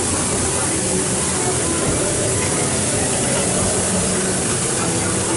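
Steady hiss-like ambient sound inside the Spaceship Earth dark ride, with faint voices and music from the ride's scene soundtrack mixed in.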